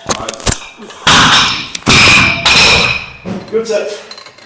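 Heavy iron dumbbells, about 63–64 kg each, dropped to the gym floor at the end of a set of presses. A deep thud comes about half a second in, then two loud crashing impacts with a metallic ring follow about one and two seconds in, and a man's voice comes near the end.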